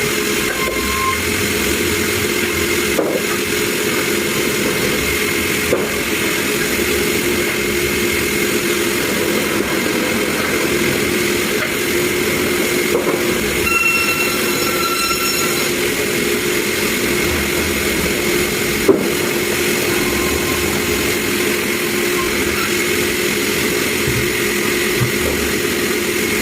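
Sawmill machinery running steadily, a constant mechanical drone with a few faint knocks.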